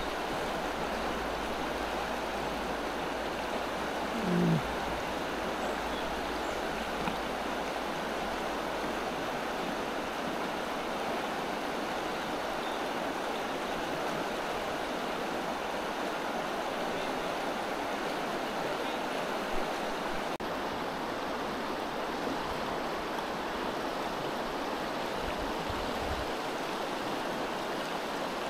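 Shallow river water running fast over a stony riffle, a steady rush close to the microphone. A brief low-pitched sound comes about four seconds in.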